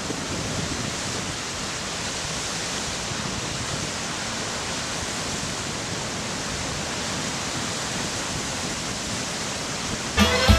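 A steady, even rushing noise like hiss or running water, with no tune or rhythm. About ten seconds in it gives way to music: the band opening of a trot song with saxophone starts up.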